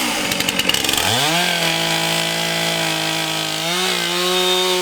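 Chainsaw engine on an Alaskan sawmill, revving: its pitch dips and climbs about a second in, then holds steady at high revs and steps up slightly near the end.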